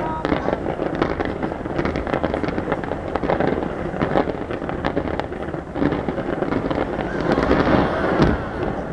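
Fireworks display: a dense, continuous barrage of bursts and crackling, heaviest shortly before the end.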